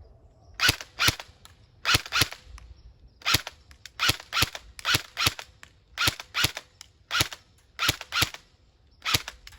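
Lancer Tactical M4 airsoft gun firing single shots on semi-auto: about eighteen sharp cracks, mostly in quick pairs, spaced evenly.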